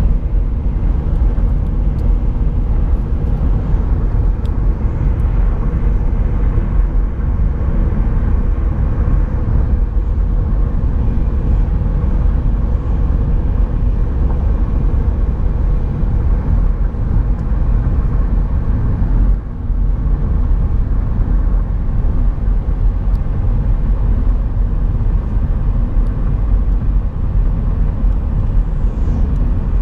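Steady low road rumble inside a moving car's cabin at highway speed: tyre and wind noise, with a brief dip about two-thirds of the way through.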